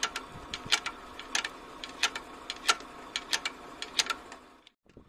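Ratchet wrench clicking in irregular runs as the Hino 260 Ti diesel engine is turned over by hand in its direction of rotation, to bring it to the next top-dead-centre mark for valve adjustment. The clicking stops briefly near the end.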